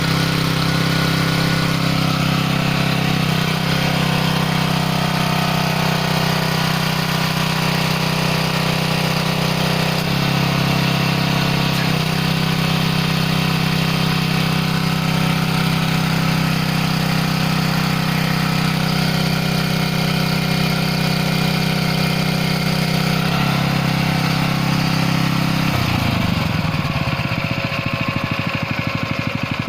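Gasoline engine driving a hydraulic pump, running steadily. Its tone shifts a few times, and near the end its pitch falls away as the engine slows.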